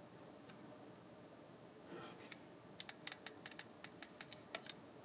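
The winding crank of a manual Hasselblad film magazine being turned clockwise to advance the film, its ratchet clicking. After a quiet start with one lone click, a quick run of sharp clicks at about four a second begins a little past halfway.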